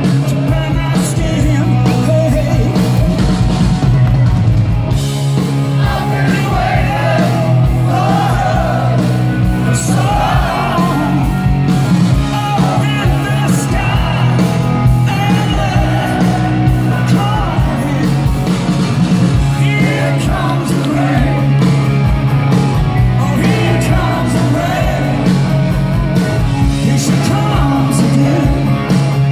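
Rock band playing live and loud through a festival PA, heard from among the crowd: electric guitars, bass and drums, with a male lead singer coming in about six seconds in and singing through most of the rest.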